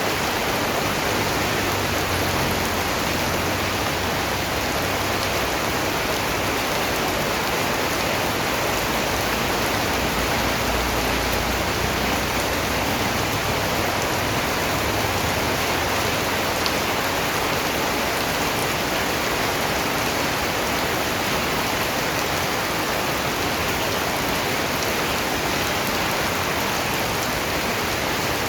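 Steady rain falling on a surface, an even hiss of raindrops with no change throughout.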